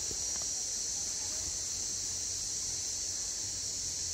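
Steady high-pitched drone of insects, a cricket-like chorus, holding one even pitch without a break.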